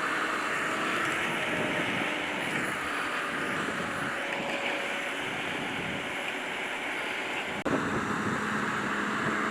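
Grimme Varitron 270 potato harvester at work: steady engine and machinery noise. About three-quarters of the way through, the sound breaks off sharply and resumes with a steadier, lower engine tone.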